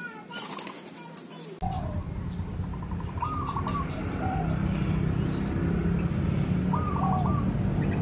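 Spotted dove cooing, the same short phrase given twice a few seconds apart, over a steady low rumble.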